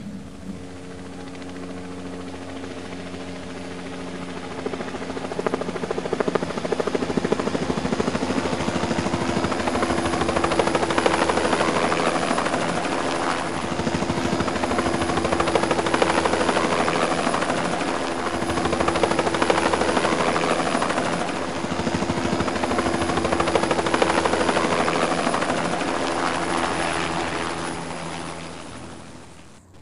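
Small DC hobby motor spinning the rotor of a homemade stick-frame model helicopter: a steady electric whir over a hum. It grows louder over the first several seconds, then swells and eases every few seconds, and drops away at the very end.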